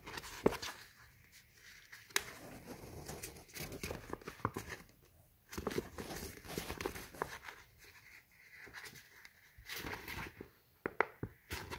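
Scored polypropylene sheet being pinched and creased by hand along its score lines: irregular crackles and sharp clicks as the plastic folds, with short quieter pauses between.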